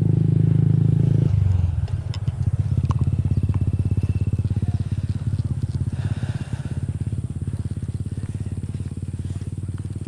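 Motorcycle engine running with a fast, even pulse. Its sound thins about a second in, then slowly fades.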